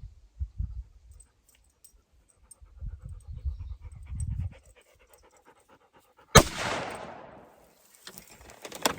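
A single shot from a bolt-action 6.5 Creedmoor rifle about six and a half seconds in, its report trailing off over about a second and a half. Before it, a black Labrador panting.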